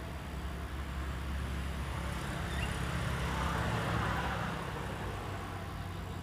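Road traffic noise: a steady low rumble, with a passing vehicle's rushing noise swelling to a peak a little past the middle and then fading.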